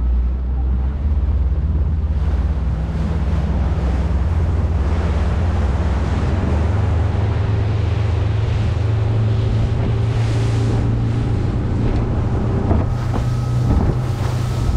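Small motorboat's engine running steadily under way, with its hull rushing through choppy river water and wind buffeting the microphone. The engine note climbs a little about five seconds in.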